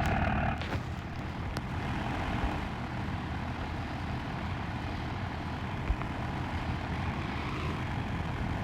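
Pickup truck engine idling steadily as the truck creeps forward at low speed.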